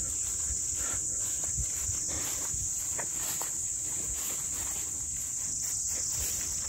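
Insects chirring in one steady, unbroken high-pitched drone.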